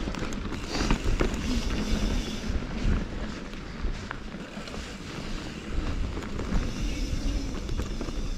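Mountain bike riding a dirt trail: wind rumbling on the camera microphone over the noise of tyres rolling on dirt, with scattered clicks and rattles from the bike.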